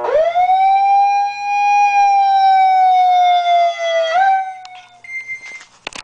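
Homemade siren in a converted megaphone, fed by an electronic attack-tone generator, sounding one loud wail that climbs quickly at the start, holds for about four seconds while sagging slowly in pitch, then fades out. A few short high beeps from the microwave-oven control panel that times the siren follow near the end.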